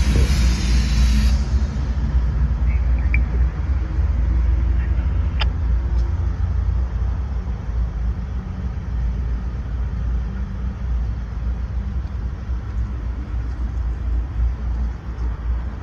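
Two GE AC4400CW diesel locomotives (CSX class CW44AH) backing away as light engines, their 16-cylinder diesel engines giving a steady low rumble that slowly fades as they recede. A hiss runs through the first second or so.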